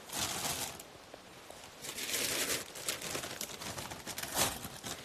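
Packaging crinkling and rustling as it is handled, in three bursts.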